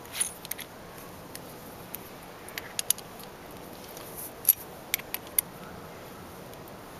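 Small metallic clicks and ticks of a small bolt and washer being screwed by hand through a bar-end throttle lock into a motorcycle handlebar's threaded end, coming at irregular intervals.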